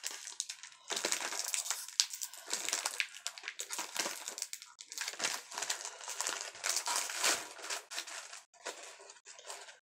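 A crinkly snack packet of crackers being handled and pulled open by hand, crackling and rustling, thinning out near the end.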